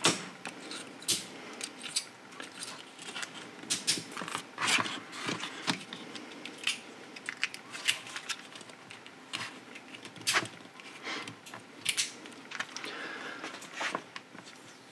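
Small screwdriver prying apart the plastic case of a server RAID controller battery pack, giving irregular plastic clicks, snaps and short scrapes as the clips give and the shell is worked open.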